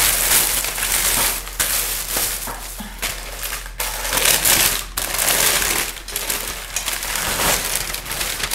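Plastic shopping bag crinkling and rustling in repeated bursts as it is unwrapped from a glass bowl.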